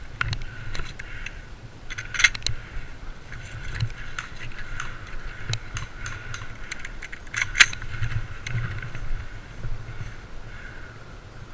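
Rattling and clicking of gear close to the microphone, with a low rumble of movement throughout and two sharp, louder clicks, about two seconds in and again about seven and a half seconds in.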